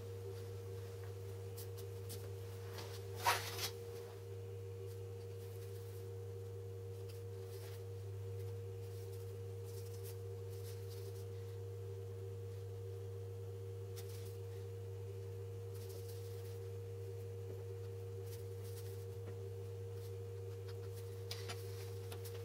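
Steady electrical hum, a low tone with a fainter higher whine above it. A sharp knock comes about three seconds in, and two faint taps near the end.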